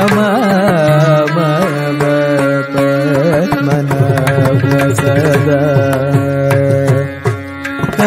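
Carnatic music in raga Varali, misra chapu tala: a male voice in ornamented, bending phrases that settle into long held notes, over regular drum strokes.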